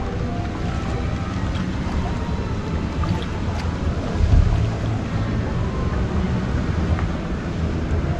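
Wind rumbling on the microphone over open-air harbour ambience, with a stronger gust about four seconds in.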